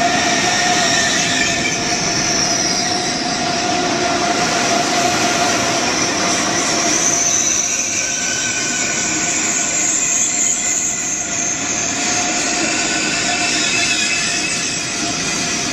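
ICE high-speed electric train moving slowly along the platform: steady rolling and wheel-on-rail noise under a high electric whine of several tones, one of which creeps slowly upward in pitch during the first half.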